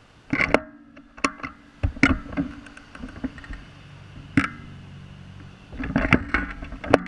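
A string of sharp knocks and clicks, the camera being handled on its mount. A dense cluster comes near the end, over a low steady hum.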